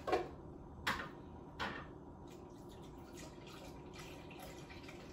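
Stout beer glugging out of a bottle into a blender jar: three loud glugs in the first two seconds, then a faint steady pour.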